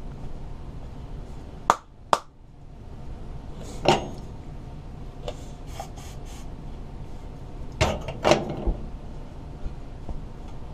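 Knocks and clatters of a plastic cup and a spray-paint can being handled at a steel sink: two sharp knocks close together about two seconds in, another near four seconds, and two more about eight seconds in, with lighter ticks between, over a steady low rumble.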